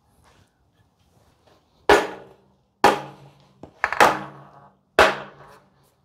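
Rubber mallet tapping the VW 40 HP engine's case halves, four blows about a second apart, each followed by a brief ring from the metal case. The taps are seating the two case halves together.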